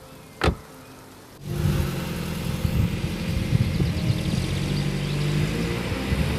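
A single short knock, then about a second and a half in the engine of a Volvo V50 estate comes in loud and keeps running as the car drives off.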